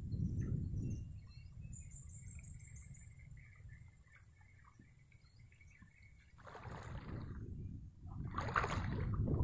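Legs wading through shallow, grassy swamp water, with two louder swishing sloshes in the last few seconds.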